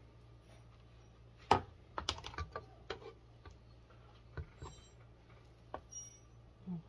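Kitchen utensils clicking and tapping against a mixing bowl and pan while tamal masa is spread and bean filling is scooped: one sharp knock about a second and a half in, then a run of lighter, irregular clicks and a few scattered taps.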